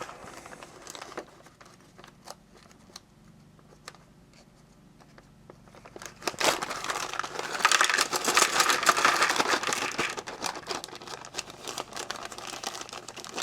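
Plastic packaging of an electronics kit crinkling as it is handled, with scattered light clicks at first, then loud, dense crinkling for about four seconds from around the middle, easing back to sparse clicks.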